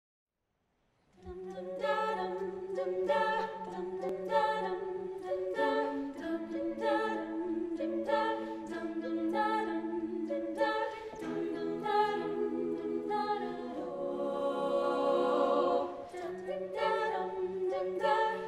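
Women's a cappella group singing close-harmony backing chords in a repeating rhythmic pattern over a held low note, starting after about a second of silence. About fourteen seconds in, the voices swell into a fuller held chord before the pattern returns.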